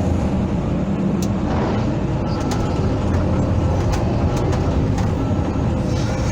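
Hydraulic excavator's diesel engine running steadily, with a few sharp ticks scattered through.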